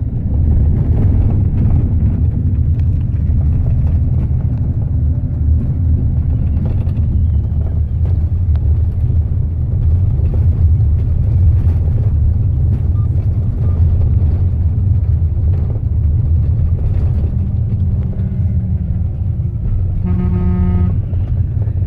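Steady low rumble of a moving coach bus, heard from inside the passenger cabin. Near the end, a horn sounds for about a second.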